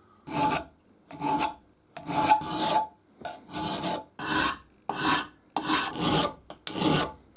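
Hand file scraping back and forth on a steel part of the shear, in a steady run of about ten strokes.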